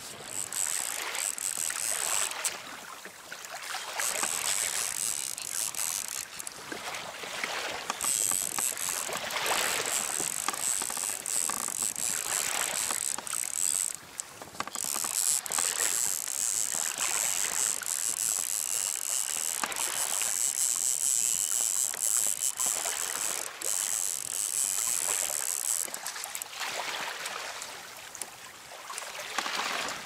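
A fishing reel being cranked in long spells as a hooked fish is reeled in to the kayak, its gears whirring steadily, with wind and choppy water washing against the hull.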